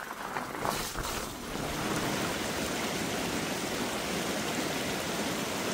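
Shallow rocky creek flowing, a steady rush of water that settles in about a second and a half in, after a couple of short brushing sounds at the start.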